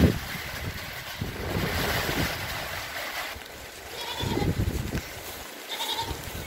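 A goat bleating, one short call about four seconds in and another near six seconds, over a steady rushing noise. A few low thumps, the loudest right at the start.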